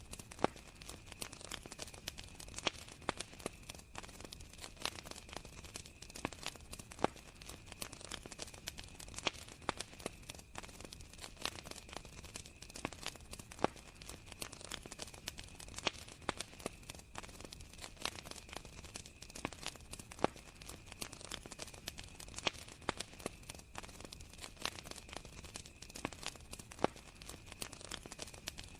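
Campfire crackling, with frequent irregular pops and snaps, over the steady high-pitched chirring of crickets.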